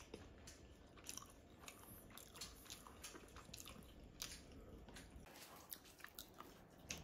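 Faint chewing and eating sounds: small irregular clicks and crunches of someone eating.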